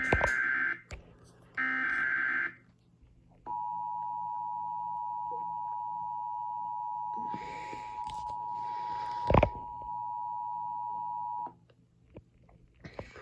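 Emergency Alert System opening: the screeching digital data bursts of the SAME header, the second ending about two and a half seconds in, then the two-tone EAS attention signal sounding steadily for about eight seconds before cutting off abruptly. A sharp click sounds partway through the tone.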